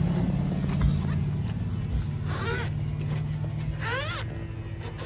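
A socket ratchet clicking as it tightens a brake caliper bolt, over a steady low hum. Two short high chirps come about two and four seconds in.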